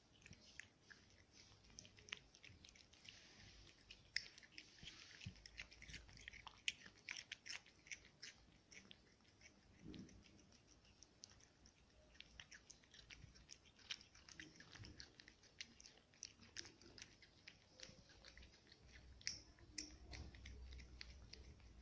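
A cat chewing and licking soft food off a plate: quiet, rapid wet smacks and clicks of its mouth and tongue, close to the microphone.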